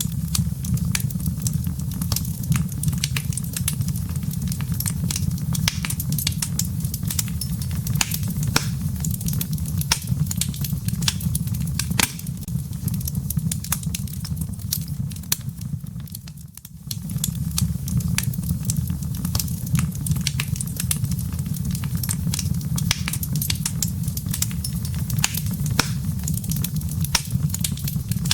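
Wood fire burning in a fireplace, crackling with many sharp irregular pops over a steady low rumble of flames. The sound dips briefly about two-thirds of the way in, then carries on.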